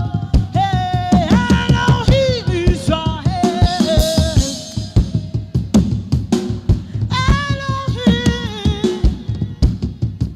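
Gospel worship music: a woman's voice singing long, wavering notes over a steady drum-kit beat.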